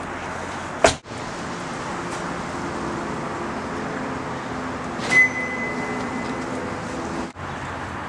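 A car door slammed shut about a second in. About four seconds later comes a single high electronic beep, held for about a second.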